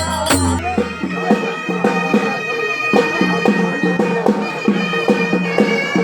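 Village band music: a reedy wind instrument holds a sustained, nasal melody over a steady, regular drum beat.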